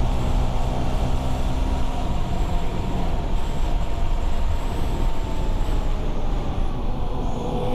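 Road traffic: a heavy vehicle's engine runs close by with a steady low rumble, and its hum drops away about two seconds in.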